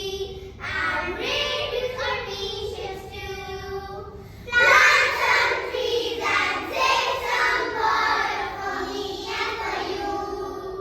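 Children singing a song in held, melodic notes, becoming louder about four and a half seconds in.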